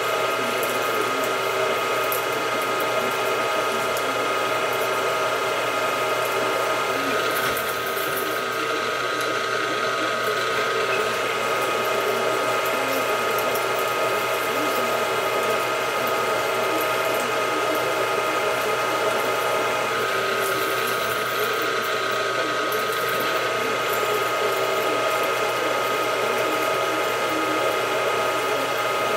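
Milling machine running steadily, its end mill cutting a recess into an aluminum block. A constant machine whine of several steady tones carries through, with the noise of the cut under it.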